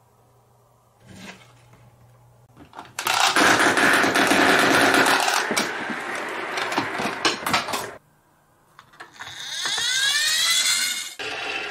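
Marbles clattering and rolling along a wooden marble-run track: a loud, dense rattle for about five seconds that stops suddenly. After a short pause, a toy garbage truck's friction motor whirs with a rising whine as the truck is pushed by hand.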